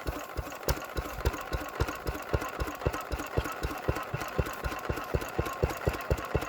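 Petter AA1 single-cylinder diesel engine running steadily at low speed, with an even thump at about five to six beats a second.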